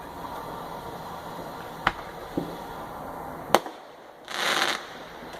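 Fireworks going off: two sharp bangs about a second and a half apart with a smaller pop between them, then a half-second burst of hiss near the end.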